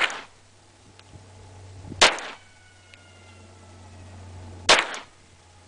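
Glock 17 9mm pistol fired single shots, three in all, about two to two and a half seconds apart, the first right at the start, each a sharp crack with a short tail.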